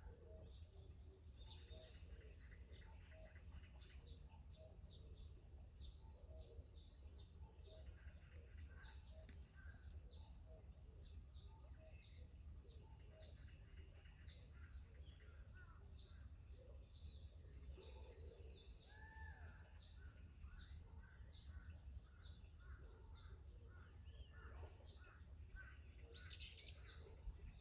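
Faint birdsong: several small birds chirping and calling on and off throughout, over a steady low rumble.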